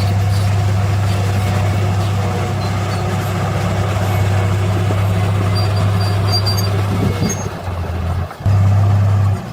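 Heavy construction-machine diesel engine running steadily with a low drone. Near the end it falls away briefly, then cuts off and back in abruptly twice.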